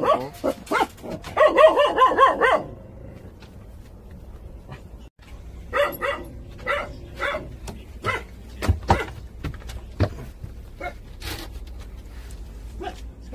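Young Jindo puppies whining and yipping: a run of high, wavering whines in the first two and a half seconds, then short scattered yips for the rest.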